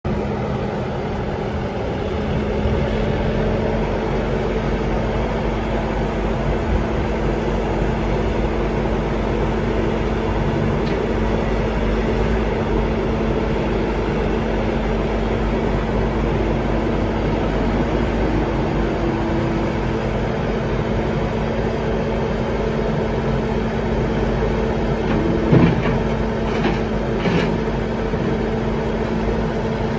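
Bobcat T770 track loader's 92 hp Doosan diesel engine running steadily, with a few short knocks near the end.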